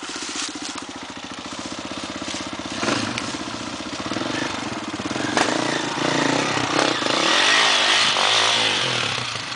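Enduro dirt bike engine running and revving, growing louder as the bike approaches, with the revs swinging up and down near the end.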